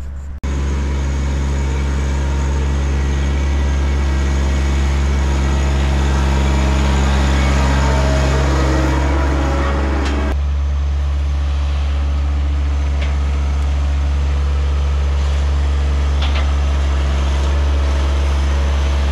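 John Deere 1023E sub-compact tractor's three-cylinder diesel engine running steadily under work. Its tone changes about ten seconds in.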